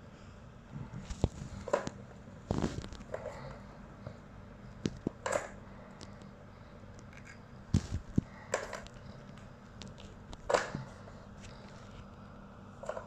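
Irregular plastic knocks and clatters from a three-tier plastic ball-track cat toy as a cat paws the balls around its track. There are a dozen or so scattered hits, with the sharpest near the middle and about two-thirds of the way through.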